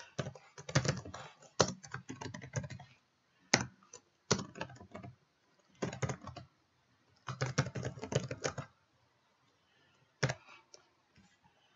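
Typing on a computer keyboard: several short runs of rapid keystrokes with pauses between them.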